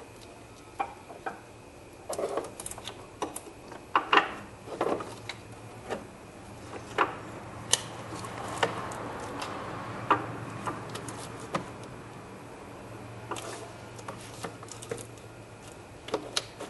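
Irregular clicks, knocks and rattles of hand work as the battery hold-down bracket is fitted back down at the base of the car battery, over a low steady hum.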